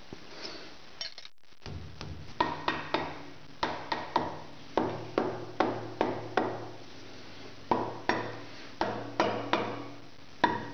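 Small metalworking shaper running on a test cut: a steady motor hum under repeated sharp metallic clacks, a few a second, as the ram strokes back and forth.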